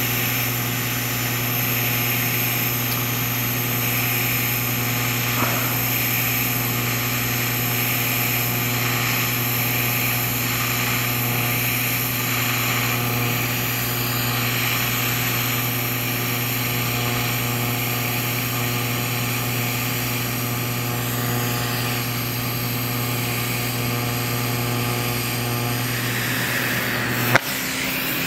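TIG (GTAW) arc burning steadily on a stainless steel pipe during a cap pass, set at about 115–120 amps: a steady hum with hiss. It cuts off abruptly about a second before the end as the arc is broken.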